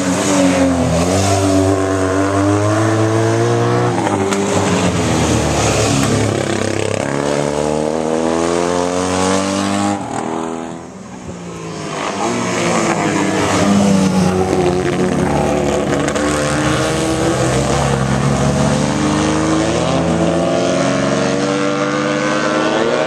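Classic racing sidecar outfits at racing speed, engines revving hard, passing close by one after another, the engine note dropping in pitch as each goes past. There is a short lull about eleven seconds in before the next outfit's engine rises again.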